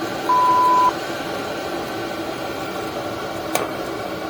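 A single steady electronic beep, about half a second long, from the MaXpeedingrods 12 V diesel heater's controller as the heater is switched off. Under it, the heater's blower keeps up a steady drone as it starts its shut-down cool-down. A sharp click comes about three and a half seconds in.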